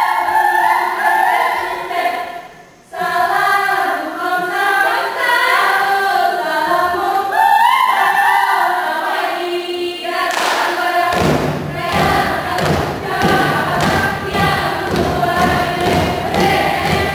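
Saman dancers singing together in chorus, with a brief break in the song about two seconds in. From about ten seconds in, a fast, steady rhythm of hand claps and slaps on the body joins the singing.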